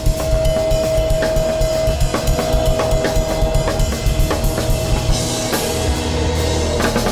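Music with a busy drum-kit beat of rapid, evenly spaced hits, over a steady held tone that fades out around the middle. A cymbal-like wash comes in during the last couple of seconds.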